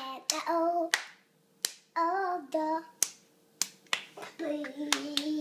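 A young boy claps his hands in an uneven rhythm, a dozen or so sharp claps, while singing three short phrases of held notes. The last note is held and drops in pitch near the end.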